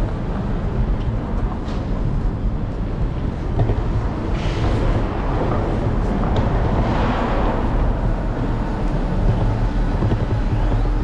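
Steady wind and rolling rumble on an electric scooter's handlebar-mounted microphone as it rides over a brick sidewalk, with street traffic around. A louder rushing sound swells and fades about four to seven seconds in.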